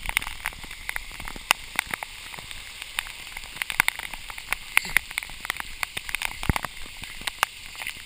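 Heavy downpour: a steady rain hiss with many sharp ticks of drops striking close by.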